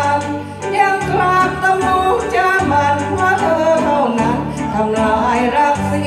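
Thai karaoke backing music playing through loudspeakers: a wavering melody over sustained low bass notes.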